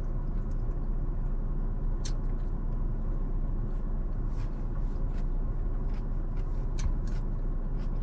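Steady low rumble of a car idling, heard inside the cabin, with a few short clicks and smacks from eating scattered through it.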